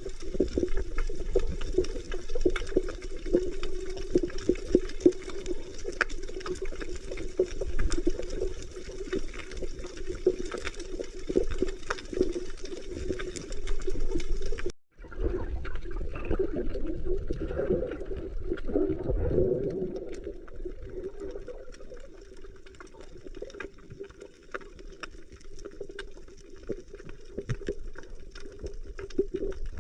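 Underwater sound of a spearfishing dive: a steady, muffled water rush with a low hum and a dense crackle of fine clicks. The sound cuts out for a moment about halfway, then carries on a little quieter, with a brief swelling rush a few seconds later.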